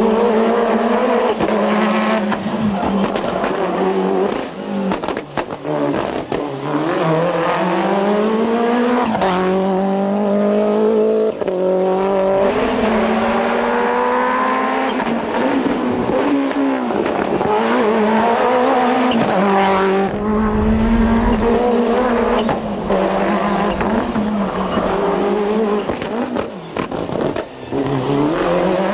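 Toyota Celica GT-Four ST185 rally car's turbocharged 2.0-litre four-cylinder engine driven flat out on a stage: the revs climb again and again and fall back through gear changes, with a few brief lifts off the throttle.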